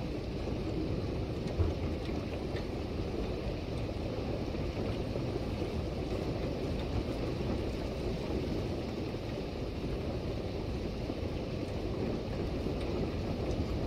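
Steady rain falling on a street and yard, an even hiss with a low rumble underneath. A single brief thump comes about a second and a half in.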